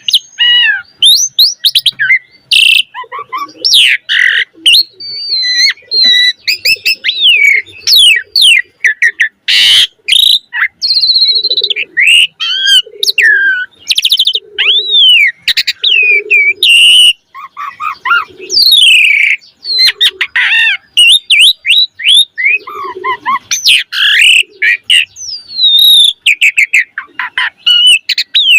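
Asian pied starling singing hard: a long, varied song of loud whistles, rapid chattering trills and sharp clicks, with low throaty notes between, packed with mimicked calls of other birds.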